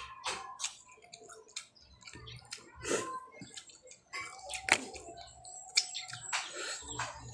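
Close-up wet eating sounds of cooked green mussels: lips smacking and slurping the meat and broth off the shells, with many short clicks and a few louder wet smacks a little past halfway.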